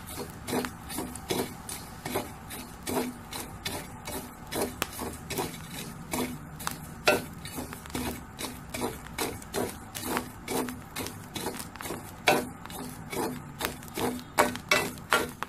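Metal spatula stirring and scraping coarse salt and black chickpeas around a hot pan as the chickpeas dry-roast in the salt. It is a run of quick, gritty scraping strokes, a few a second, with a sharper scrape here and there.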